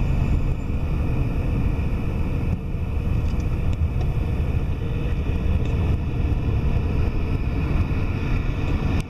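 Steady rumble of a moving vehicle, even and unbroken.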